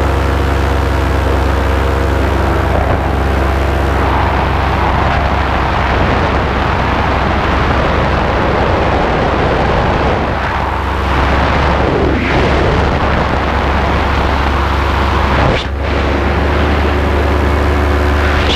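Vittorazi Moster single-cylinder two-stroke paramotor engine running steadily in flight. Wind rushes over the microphone and grows from about four seconds in, swelling and dipping.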